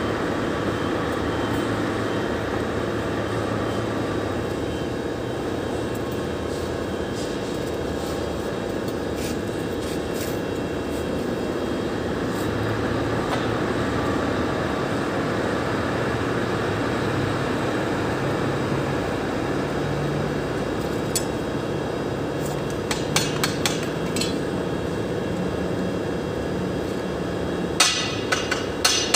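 Steady machine hum with a constant tone in a steel workshop. Near the end come a quick run of sharp metal taps on the steel frame, hammer on steel.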